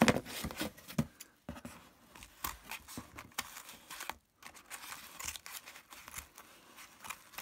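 A yellow padded plastic mailer bag being handled and cut open with scissors: irregular crinkling and rustling of the bag with scattered sharp snips and clicks.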